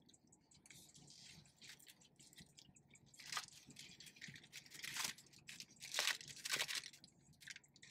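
Paper food wrappers rustling and crinkling as snacks are handled, a few short crinkles that grow louder in the second half.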